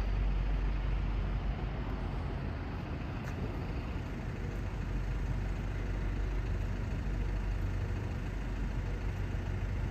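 Steady low outdoor rumble of city background noise, with no distinct events.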